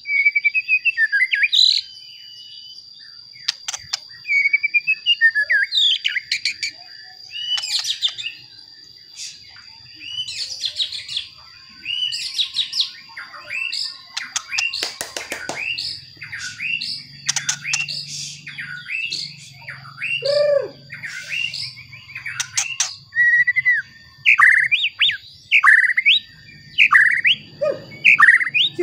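White-rumped shama singing: a varied song of whistled, gliding phrases in bursts with short pauses, ending in a quick run of repeated sharp notes. A steady high-pitched whine runs underneath.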